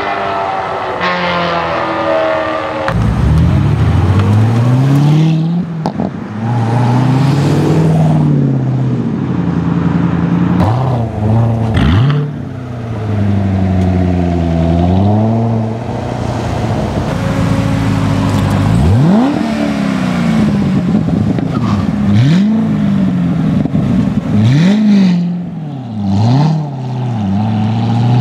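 Chevrolet Corvette V8 engines accelerating hard past, one car after another. The exhaust note climbs through each gear and drops at the shifts, with a few sharp, quick revs.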